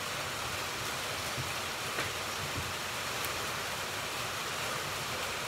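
Rain hitting the metal roof and walls of a building, a steady hiss, with a light click about two seconds in.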